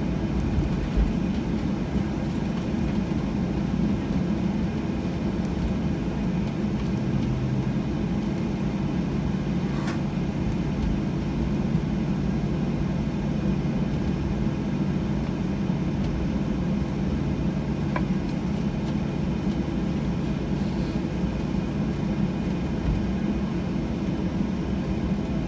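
Steady low cabin rumble of a Boeing 737-900 taxiing after landing, its CFM56 engines at idle. A couple of faint clicks come about ten and eighteen seconds in.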